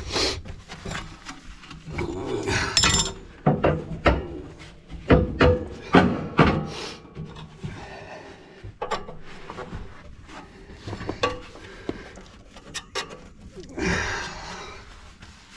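Firebrick and cast-iron grate parts inside a wood-burning stove scraping and knocking as they are wiggled forward by hand, catching on the lugs that jam them.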